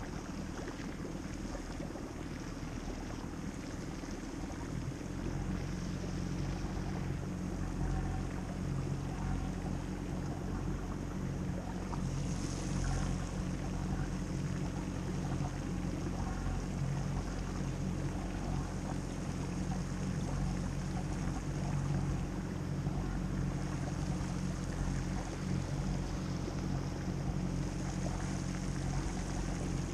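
Outboard motor running steadily at low speed, a low hum that grows a little louder about five seconds in, over the rush of river water.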